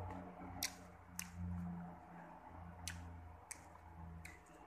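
Close-up chewing of crunchy unripe green mango, with about five sharp crunching clicks over a low hum.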